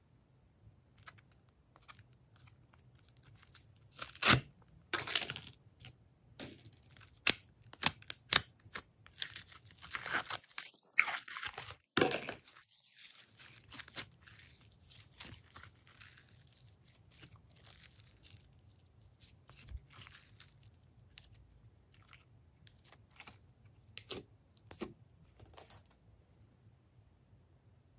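Slime being handled and mixed: sticky crackles, pops and clicks, busiest from about four to thirteen seconds in, then sparser.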